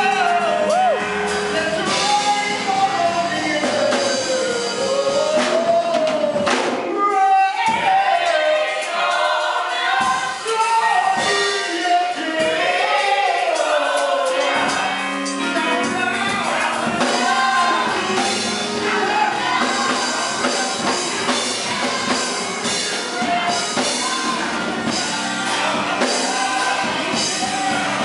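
A man singing a gospel song through a microphone and PA system, backed by a live band with drums and keyboard.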